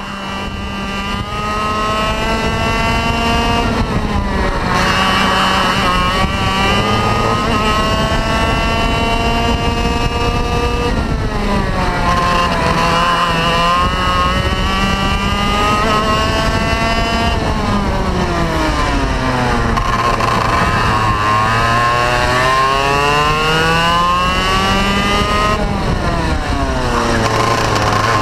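Vortex ROK 125 single-cylinder two-stroke kart engine at racing speed, heard from onboard the kart. The revs climb steadily along the straights and fall away sharply into the corners, several times over the lap.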